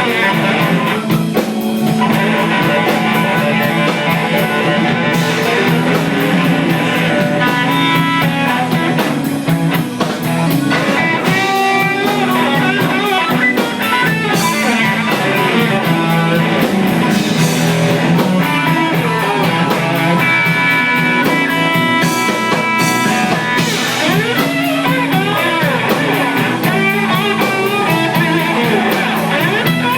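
Live blues band playing: guitar with held and bending notes over a steady bass line and drum kit.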